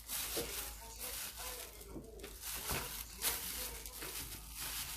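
Close-up eating sounds of spicy braised seafood: irregular wet chewing and sucking noises, several short bursts a second.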